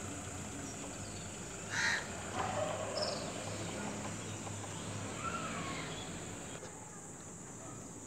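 A bird calling once, briefly and louder about two seconds in, then a few fainter calls, over a steady high-pitched hiss.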